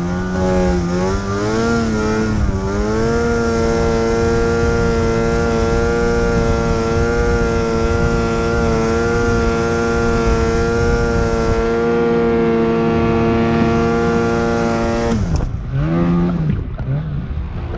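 Snowmobile engine climbing in pitch with a few throttle dips over the first three seconds, then held at a steady pitch under throttle. About fifteen seconds in it drops off sharply as the throttle is released, followed by a couple of short throttle blips.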